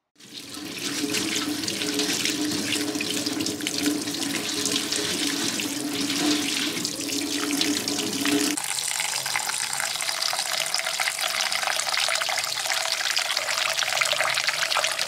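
Tap water running onto dried shrimp being rinsed in a wire-mesh strainer, with a low steady tone under the splashing. About eight and a half seconds in, the tone stops and the water pours into a stainless steel bowl of soaking shrimp, sounding brighter and splashier.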